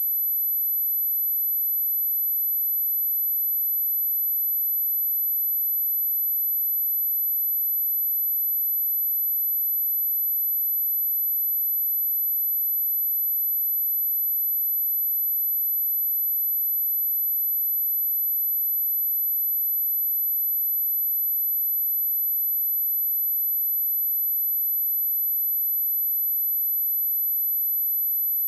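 A pure 11976 Hz sine-wave test tone: one very high pitch held steady at a constant level. It is played as a speaker test and speaker-cleaning tone.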